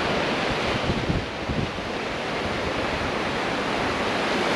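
Surf breaking and washing up a sandy beach in a steady rush, with wind buffeting the microphone in low rumbles during the first second or two.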